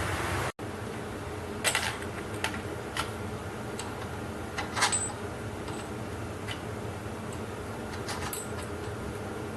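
Scattered light metallic clicks and clinks of small metal parts being handled and fitted together, the loudest a couple of seconds in, about five seconds in and near the end. Under them runs the steady hum of a diesel heater's fan. A louder hiss cuts off abruptly just after the start.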